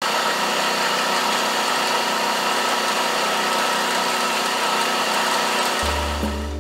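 Vertical milling machine running, its end mill cutting a metal part held in a vise: a steady machining whir with several held whining tones. Music fades in near the end.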